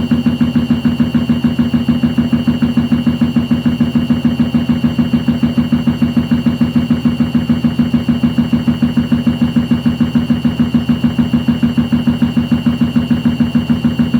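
Hoover washing machine running, a low hum that pulses evenly about five times a second, with a steady high whine over it.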